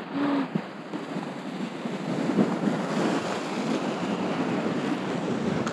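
Ocean waves breaking on the shore, a steady rush of surf, with wind buffeting the microphone.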